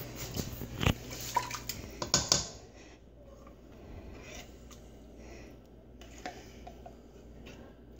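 A spoon clinking and scraping against a tin can as condensed cream of chicken soup is scooped out into a pot of broth. There are a few sharp clicks in the first couple of seconds, the loudest about a second in, then it goes quieter.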